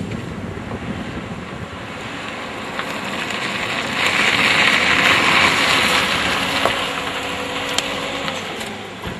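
Car driving and turning in: steady engine and road noise, with a hiss that swells to its loudest about halfway through and then fades.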